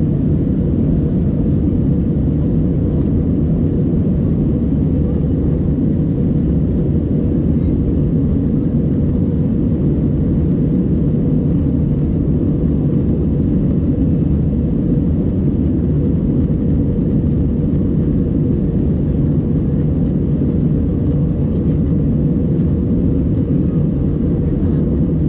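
Steady low drone of an Airbus A320 in flight, engine and airflow noise heard inside the passenger cabin.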